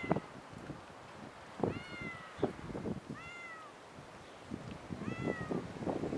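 A domestic cat stuck up a tree meowing four times, short high-pitched calls that rise and fall in pitch, a second or two apart.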